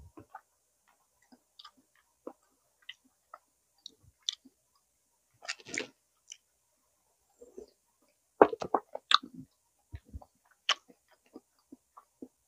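A person eating close to the microphone: irregular chewing clicks and wet mouth smacks, with a short flurry about halfway through and a louder, busier spell about two-thirds of the way in.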